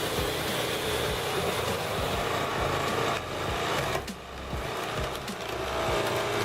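A motorised wood-cutting machine running under load, its saw working through timber. The sound is steady, then drops away about four seconds in and builds again near the end.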